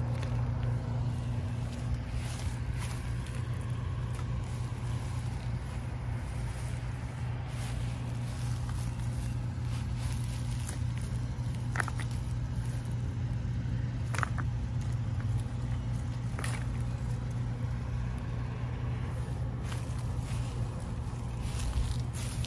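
A steady low hum, like a machine running, with a few brief faint rustles and clicks around the middle.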